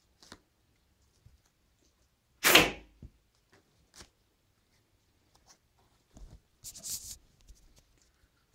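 A paper-and-cardboard replica of a Winchester 1887 lever-action shotgun being worked by hand. It gives one loud, sharp snap with a short swish about two and a half seconds in, then a few soft clicks and a brief rustling scrape a little later.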